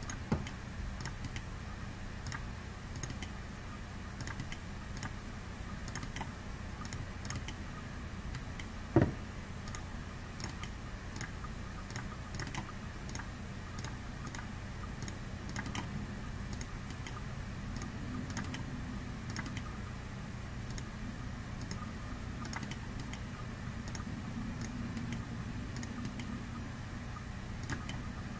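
Computer mouse button clicking again and again at irregular intervals, faint, over a steady low hum, with one louder knock about nine seconds in. These are left-clicks selecting model edges in the Pepakura Designer software.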